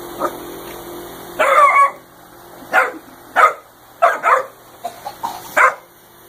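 A dog barking in short, separate barks, about half a dozen, with the longest and loudest about a second and a half in.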